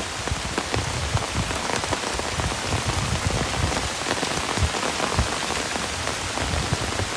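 Heavy rain falling steadily: a dense patter of drops with frequent low thuds from drops striking close by.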